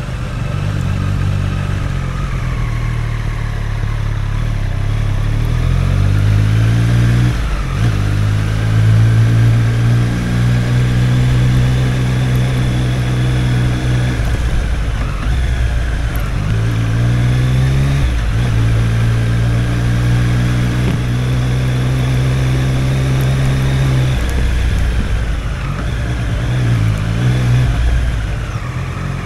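Triumph Street Triple's inline three-cylinder engine running at low revs under way, the pitch climbing and dropping back a few times as it accelerates and shifts, holding steady in between, then falling as it slows near the end.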